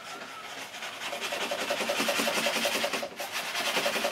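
Paintbrush scrubbing oil paint onto a stretched canvas in fast, rhythmic back-and-forth strokes. The strokes grow louder about a second in and break off briefly about three seconds in.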